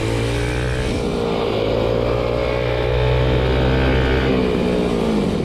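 Small off-road vehicle's engine pulling steadily on a dirt trail, its pitch rising gently through the middle, then dropping about five seconds in as the throttle eases off.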